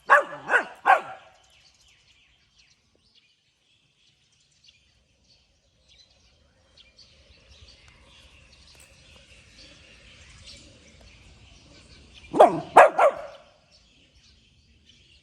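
A puppy barking in short runs: a few quick barks right at the start, then a pause, then another run of three or four barks near the end.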